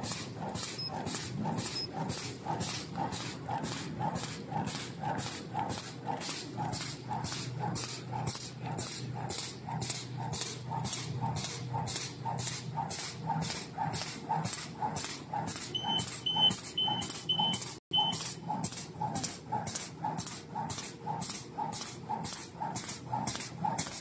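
Automatic PE zipper bag making machine running at about 120 bags a minute: an even, rhythmic clack about twice a second as it seals and cuts each bag, over a steady machine hum. A string of five short high beeps sounds about two thirds of the way through.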